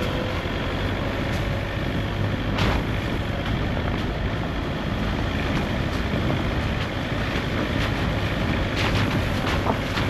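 A car driving along a rough road: steady engine and road noise, with a knock about two and a half seconds in and a few more rattles near the end.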